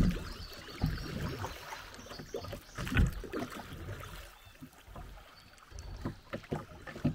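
Small boat drifting down a river, with water moving along the hull and occasional low thumps, the loudest about three seconds in.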